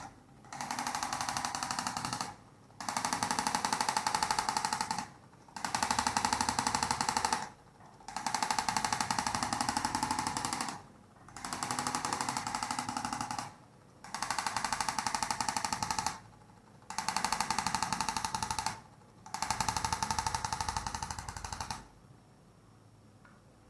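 Handheld electric massager pressed on the back, running as a rapid pulsing buzz in about eight bursts of roughly two seconds with short pauses between them, then stopping near the end.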